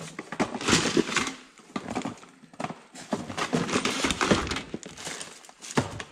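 Parts being handled and moved about on a cluttered workbench: irregular knocks and clatter of hard pieces, mixed with rustling of cardboard and plastic packaging.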